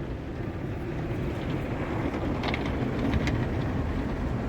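Automatic tunnel car wash running around the car, heard from inside the closed cabin as a steady low rumble, with a few light ticks about two and a half and three seconds in.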